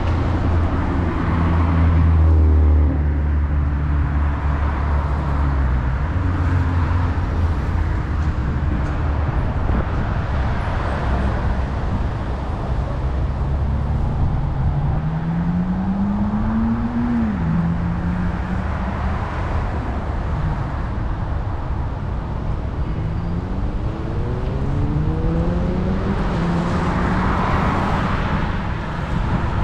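Road traffic with a motor vehicle engine accelerating: its pitch rises, drops sharply once a little past halfway as at a gear change, then rises again near the end, over a steady low hum of traffic.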